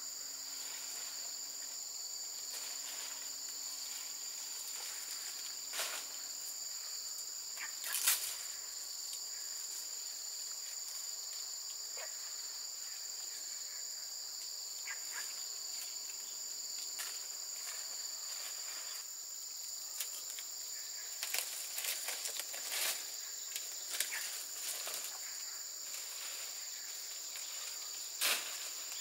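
Insects chirring steadily in two high-pitched bands. Over them come scattered rustles and a few sharp knocks of palm leaves being handled and laid on a bamboo roof frame, the sharpest about eight seconds in and near the end.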